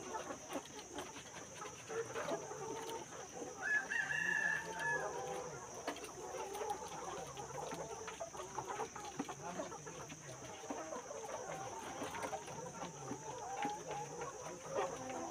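Chickens clucking throughout, with a rooster crowing once about four seconds in, the loudest sound; a steady high-pitched drone runs underneath.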